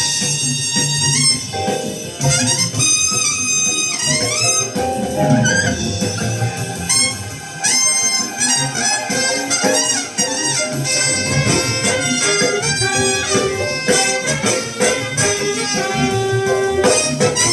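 Jazz recording with saxophone and brass playing melody lines over a rhythm section of bass and cymbals.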